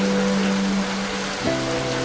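Steady hiss of rain mixed with soft background music of held notes, which changes to a new chord about one and a half seconds in.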